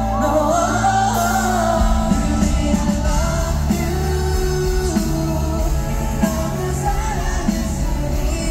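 Live pop-rock band playing over a concert PA: a man singing over keyboard, guitars and drums. The bass and drums come in fully about two seconds in, and the song continues with a steady beat.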